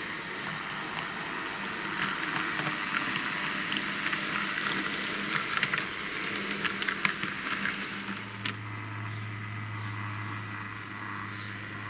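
H0-scale model trams running on their track: a steady low motor hum with the rattle and irregular clicking of small wheels over rail joints and points, busiest in the middle. From about eight seconds in a steadier, deeper hum takes over.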